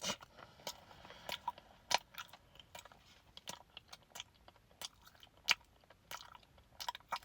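Open-mouthed chewing of a mouthful of butter and frosting: irregular wet smacking and lip clicks, several to a second.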